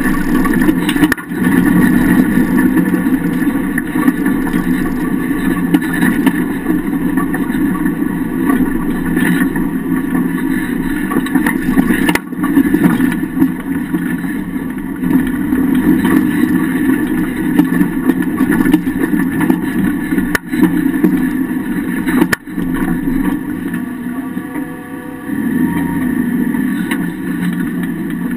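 Homemade off-road vehicle under way, its engine running steadily and loud, heard from under the chassis at the rear axle. The engine note eases off for a moment about 24 seconds in, then picks up again.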